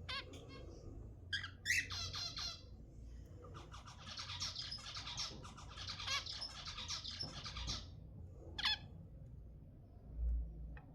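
Zebra finches calling and singing: a few short calls, then several seconds of fast, chattering song, and one more call. A low thump comes near the end.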